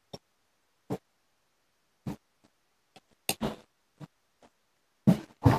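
Chopsticks clicking and knocking against the inside of a glass jar while pieces of pickled vegetable are lifted out of the brine: a scattering of short, sharp clicks with pauses between, the two loudest near the end.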